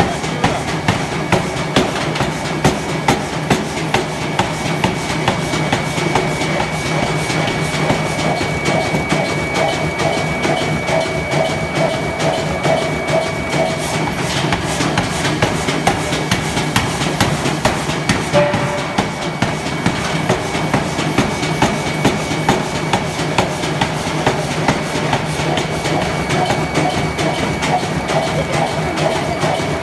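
Pneumatic air forging hammer pounding hot steel to forge grinding balls: a steady rhythm of repeated blows over the continuous hum of the hammer's running motor.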